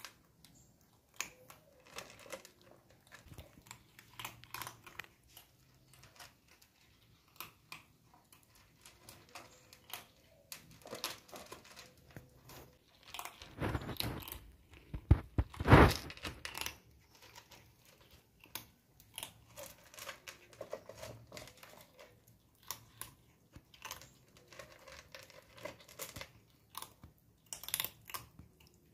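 Kittens eating: a run of small, quick chewing and crunching clicks, with a louder rustling knock about halfway through.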